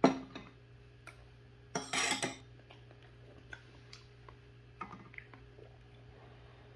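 Metal spoon knocking and clinking against ceramic bowls while eating: a sharp knock at the start, a brief louder noise about two seconds in, then scattered light taps and scrapes as rice and stew are scooped.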